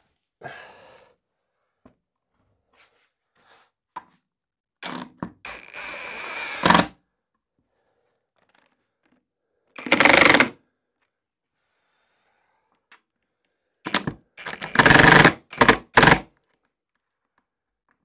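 Cordless drill run in a few short, loud bursts against the mirror's backing board, driving it onto the wall plugs, with light knocks and handling between the bursts.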